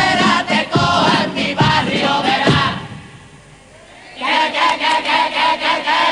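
Men's carnival chirigota choir singing its refrain in unison over a drum beat. The singing drops away about three seconds in, then the group comes back with one long held note sung together, stopping near the end.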